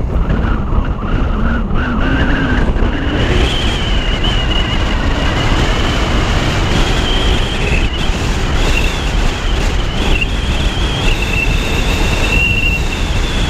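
Car pulling away and driving along a road, heard from a camera mounted on its roof: a loud, steady rush of wind and road noise. A pitch rises over the first few seconds as the car speeds up.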